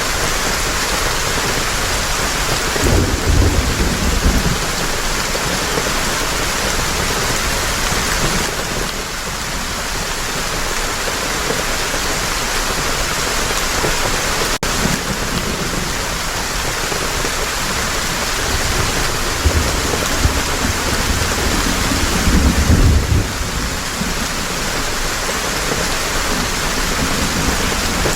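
Heavy rain falling steadily, with low rolls of thunder about three seconds in and again about two-thirds of the way through.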